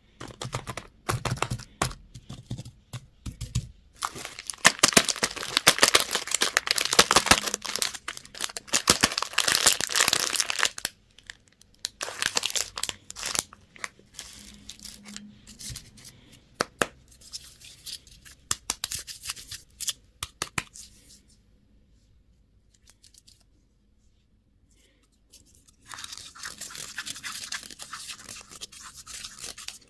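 Crinkly candy and toy packaging being torn open and crumpled by hand: dense crackling and tearing, loudest in the first third, then sparser crackles, a brief lull, and a steady rustle near the end.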